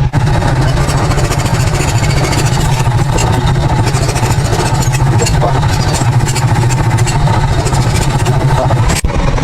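Power tool running steadily, a low motor hum under a rough, hissy grinding noise, with a momentary break just before the end.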